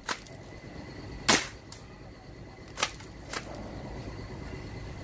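M690 toy BB shotgun firing one sharp pop about a second and a half in, with several fainter clicks before and after it.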